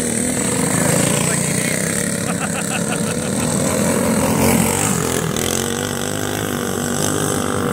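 Several racing go-kart engines running hard as the karts circle the track, among them a Tillotson 196R single-cylinder four-stroke running on alcohol.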